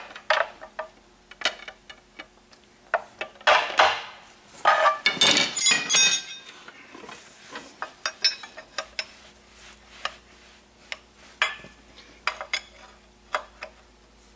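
Steel pry bars clinking and scraping against the front bearing and housing of an Eaton Fuller Roadranger 13-speed transmission as the bearing is levered off the input shaft, a stubborn fit in its bore. Irregular sharp metal taps, with a brief burst of ringing clinks about five seconds in.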